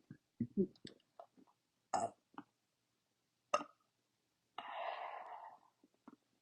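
A person forcing out burps from a bloated, overfull stomach. There are short low burps about half a second in, a few sharp clicks, and a long breathy noise near the end.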